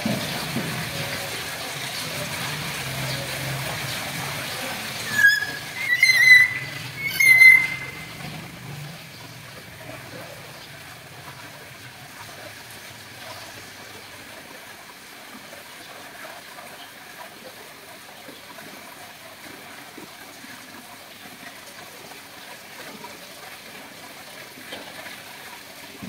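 Common hill myna calling: three loud, sharp whistled calls in quick succession about five to eight seconds in, over a steady background hiss.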